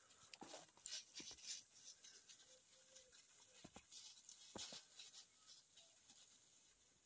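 Near silence with a few faint rustles and snaps of movement through dry grass and brush, scattered through the first five seconds.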